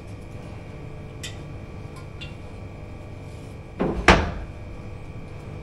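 Two quick knocks on a wooden counter panel about four seconds in, the second louder, with a few faint light taps before them.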